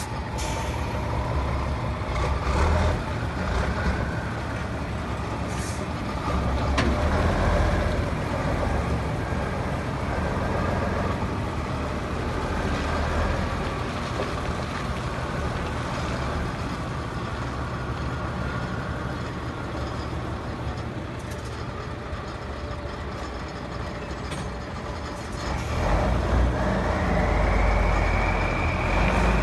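Tatra 815's air-cooled V12 twin-turbo diesel pulling a heavy lowboy trailer at low speed, the engine running with a deep rumble and turbo whistle. A couple of short air hisses come about six seconds in, and near the end the engine revs up with the turbo whine rising in pitch.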